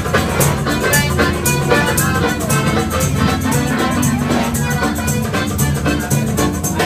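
Busking musicians playing music led by an accordion, with a steady beat.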